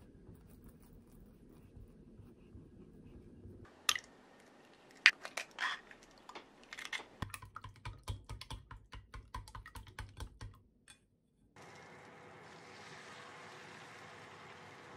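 Kitchen preparation sounds: a few sharp taps and clicks, then chopsticks beating eggs in an enamel bowl with rapid clicking for about three seconds. About a second later, beaten egg poured into a hot non-stick frying pan sets off a steady sizzle.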